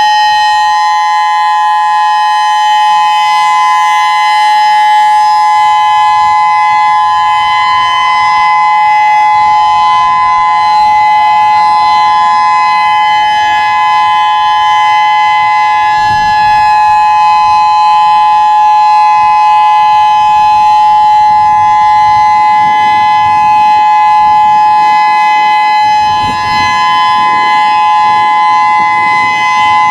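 Whelen WPS-3016 rotating electronic warning siren sounding its monthly test alert: a loud, steady tone held on two close pitches without a break.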